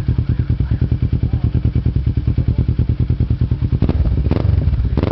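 Kawasaki ER-6N's parallel-twin engine idling through a Roncar aftermarket exhaust, with an even, pulsing note. Near the end come a couple of short, sharper bursts, like quick blips of the throttle.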